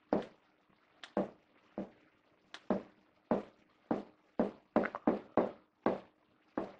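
A word being handwritten on a board: a string of short, sharp writing strokes at an uneven pace, about two a second.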